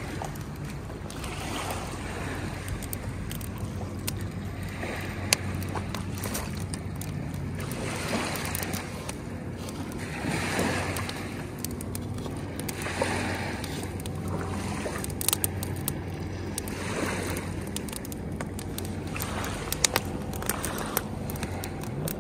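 Wind gusting over the microphone, swelling and fading, over a faint steady low engine hum, with a few sharp clicks.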